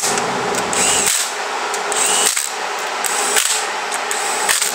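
Power drill turning a socket on an extension to run bolts on a motorcycle engine case, whirring in spells with brief pauses about every second.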